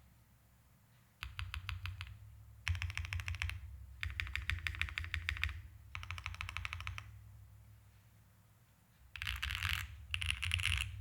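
Keys on a QK65 V1 mechanical keyboard (stock Gateron Smoothie switches, POM plate, GMK Oblivion keycaps) are pressed repeatedly. The modifier keys come in four short runs of quick clacks with pauses between them. About nine seconds in, many keys are mashed rapidly at once in a denser, louder clatter.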